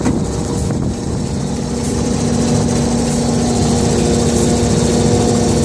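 The diesel-driven machinery of a truck-mounted Bergkamp unit runs steadily, its conveyor belt and sprocket-driven shafts turning. A steady whine joins about two seconds in, and the level rises slightly.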